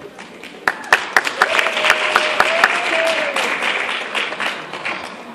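Audience applauding and cheering: loud scattered claps build into steady clapping, with one long held 'woo' cheer over it for about two seconds. The applause fades toward the end.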